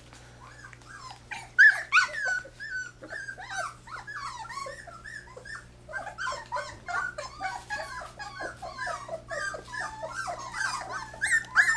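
A litter of puppies, almost four weeks old, yipping and whimpering as they wrestle together. Scattered high yelps begin about a second and a half in and build into a near-continuous chorus of overlapping squeaky yips from about halfway.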